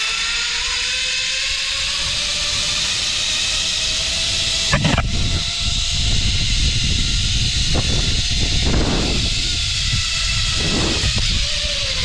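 Zip-line trolley pulleys running fast along a steel cable: a loud, steady whirring hiss with a faint whine that rises a little in pitch early on, over wind rumbling on the microphone. A single knock about five seconds in.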